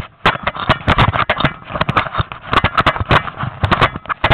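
Off-road motorcycle ridden over a rough trail of dry leaves and twigs: a dense run of irregular knocks, rattles and crackles as the bike and its mounted camera jolt over the ground.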